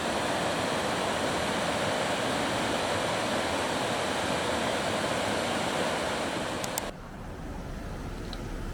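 Steady rush of river water flowing over rocks. It cuts off abruptly about seven seconds in, leaving a quieter low steady hum.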